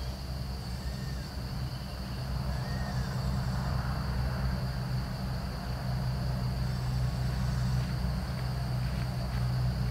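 Outdoor ambience: a steady low rumble with a constant high insect buzz above it, and a couple of faint short calls about one and three seconds in.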